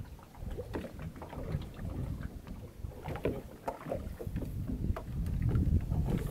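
Small open fishing boat at sea: water lapping against the hull and wind on the microphone, with scattered light knocks and clicks from a fisherman working at the gunwale. The rumble grows a little louder near the end.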